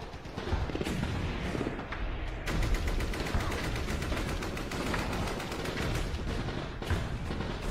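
Automatic gunfire in rapid, continuous bursts, growing denser and sharper from about two and a half seconds in.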